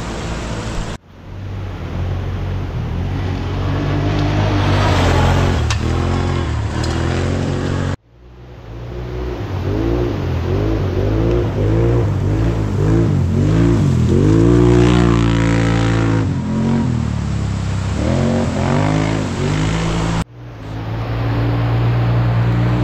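1000cc racing ATV engines revving hard, pitch repeatedly climbing and falling as the throttle is worked. The sound breaks off abruptly about one, eight and twenty seconds in, then builds again.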